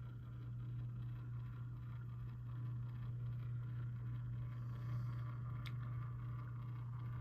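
Steady low hum with one faint click a little past the middle.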